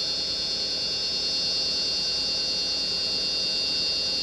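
Wood lathe running steadily with a spindle workpiece turning, its motor giving a steady hum and a constant high whine.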